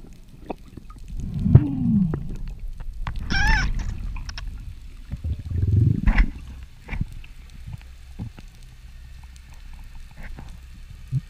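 Underwater sounds picked up by a freediver's camera: scattered low thuds, moans and creaks, with a short warbling, whistle-like call about three and a half seconds in.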